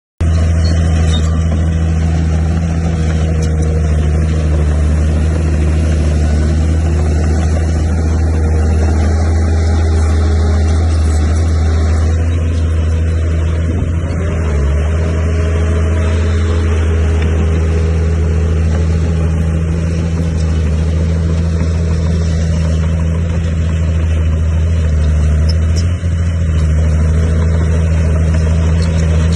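Heavy construction machine's diesel engine running steadily with a deep, even hum.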